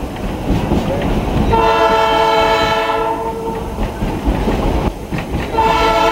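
A locomotive whistle sounds a long chord-like blast of about two seconds. It starts again near the end. Underneath, the passenger train rumbles and clatters along the rails.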